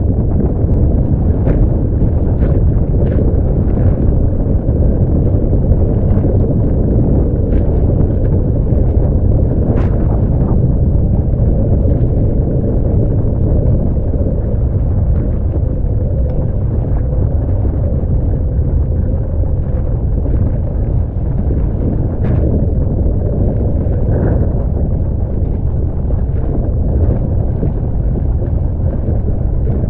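Heavy wind buffeting the microphone over the rush of water past a fast-sailing catamaran, with sharp splashes of spray every few seconds.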